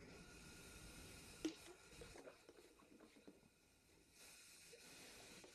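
Near silence with faint handling noises: a few small clicks and one light knock about a second and a half in.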